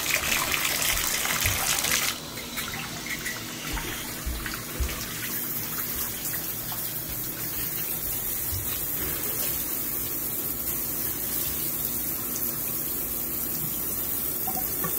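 Water running steadily from a bathtub spout, left on as a leak test of the refitted spout; it drops noticeably in level about two seconds in and then runs on evenly.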